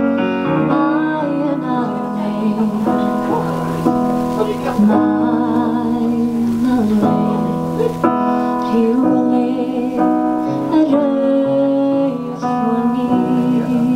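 A woman singing a Welsh-language song with held, wavering notes, accompanying herself on a Casio electric keyboard playing piano chords.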